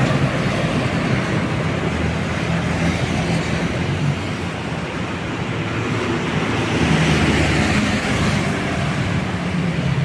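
Road traffic passing close by: the steady rush of tyres and a heavy vehicle's low engine hum, swelling again about seven seconds in.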